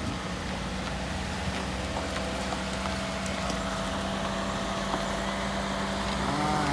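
A vehicle engine idling steadily, with a brief rise and fall in pitch near the end.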